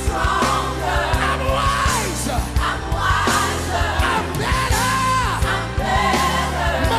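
Gospel song with a sung vocal line sliding up and down over a band with drums and bass.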